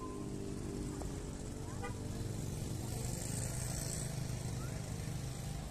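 Road traffic: small motorcycle engines running steadily as the motorcycles pass.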